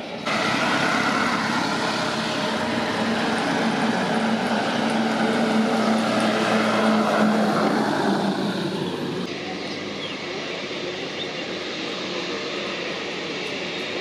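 Jet engines of a Boeing 787 airliner taxiing on the runway: a steady rushing noise with a low hum under it. It steps up abruptly just after the start and drops back about nine seconds in.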